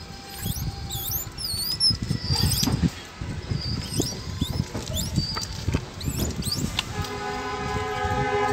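Quick, high, wavering chirps of small creatures over low rustling. About seven seconds in, a steady horn-like tone with several overtones starts and holds.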